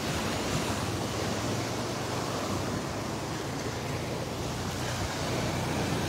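Ocean surf: waves breaking and washing up the sandy shore in a steady rush of noise.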